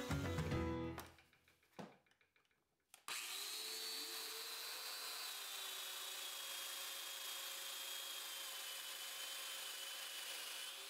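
Background music fades out in the first second. After a short quiet, a Festool Domino joiner starts about three seconds in, spins up and runs steadily with a high whine, its dust extractor running with it.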